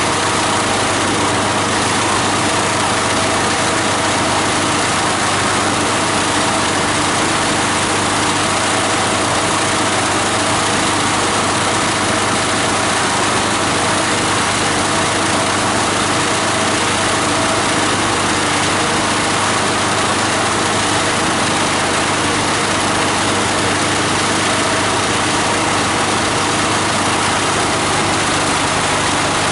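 The 18 HP diesel engine driving a multi-blade plastic and paper grinder, running steadily at a constant speed with no change in pitch or load.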